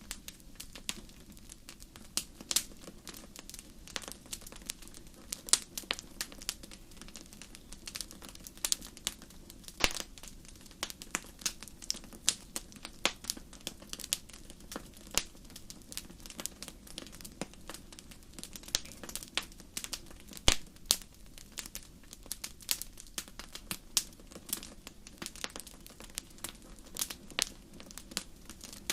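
Wood fire crackling: irregular sharp pops and snaps of burning wood over a low steady rush.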